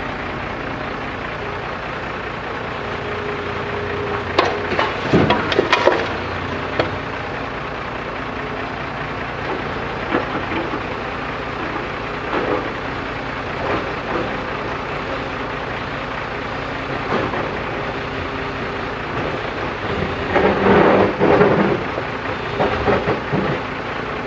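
A backhoe loader's diesel engine running steadily, with two louder spells of clanking and clatter, about four to six seconds in and again near the end, and scattered knocks between them.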